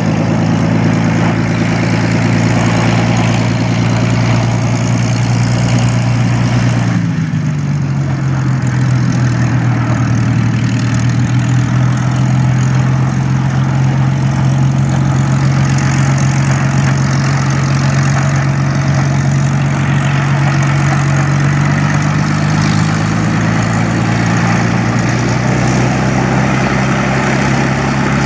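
Hawker Hurricane Mk IIa's Rolls-Royce Merlin V12 engine running steadily at low ground and taxiing revs. Its pitch drops about seven seconds in and rises a little near the end.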